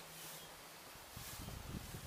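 Faint outdoor background hiss with a low steady hum for about the first second, then soft low rumbles of wind on the microphone.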